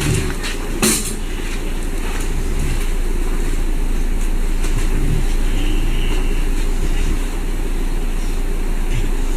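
Steady low rumbling noise with a constant electrical hum underneath, and a sharp click about a second in.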